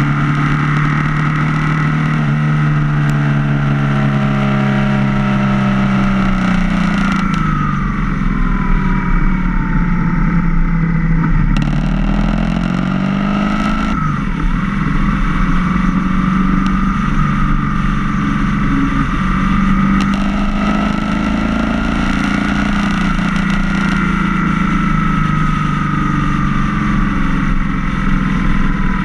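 Motorcycle engine heard from on board the bike, running at road speed with its pitch rising and falling as the rider opens and closes the throttle, over a steady rush of wind and road noise.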